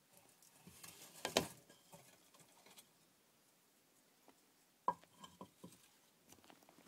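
Faint clicking and scratching from a bearded dragon feeding on live cockroaches, with a louder cluster of clicks about a second and a half in and a single sharp click near five seconds, followed by a few smaller ticks.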